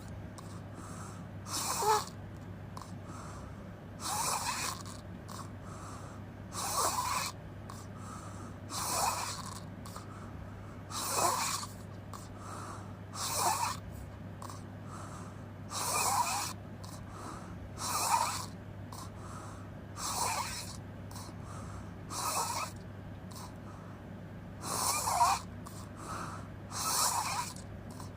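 A person snoring with the mouth open, a rasping snore about every two seconds, each lasting about a second, with quieter pauses between breaths.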